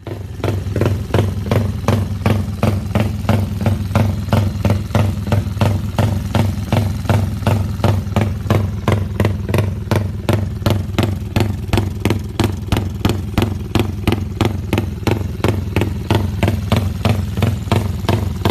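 Modified Yamaha Y15ZR (MX King 150 / Exciter 150) motorcycle, a 150 cc single-cylinder four-stroke, running at idle with an even, pulsing lope about three times a second.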